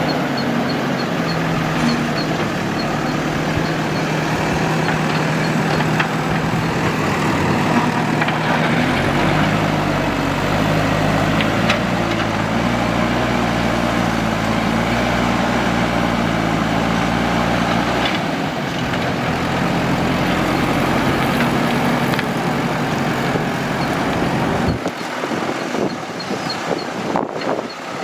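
Heavy earthmoving-machine engine running steadily, its pitch shifting a few times as the load changes. Its low rumble drops away near the end.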